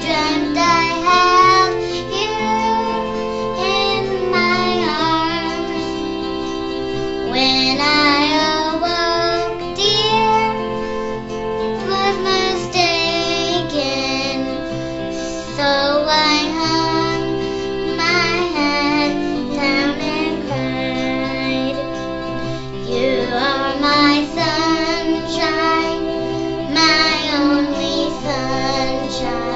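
A high voice singing a song over steady instrumental accompaniment, with wavering held notes.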